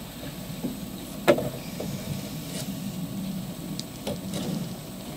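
Putty knife scraping and smearing thick two-part fairing compound across a mixing board as it is mixed, with small ticks and one sharp tap of the blade on the board about a second in.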